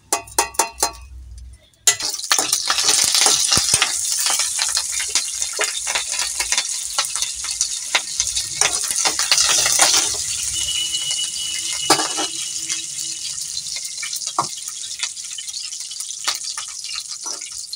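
Tempering frying in hot oil in a kadai: mustard seeds, cumin, dried red chillies, green chillies and curry leaves. A few light clinks, then about two seconds in a sudden loud sizzle as more ingredients hit the oil. Dense crackling and popping follow and slowly die down.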